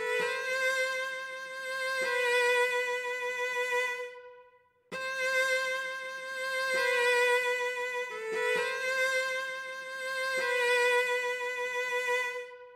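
Background music: a slow solo melody on a bowed string instrument, long held notes with a short break about four seconds in, fading out near the end.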